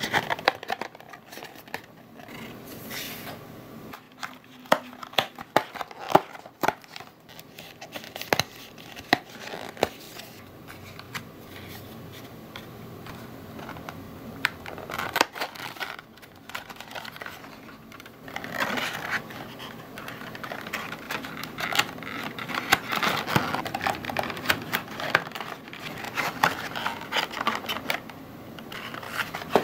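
Stiff printed cardstock being folded and its tabs pushed into slots by hand: scattered crisp clicks and taps, then, a little past halfway, a longer stretch of rustling and scraping paper.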